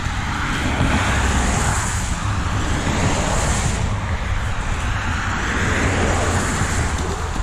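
Road traffic passing by, a steady rush of tyre noise that swells and fades, with wind rumbling on the microphone.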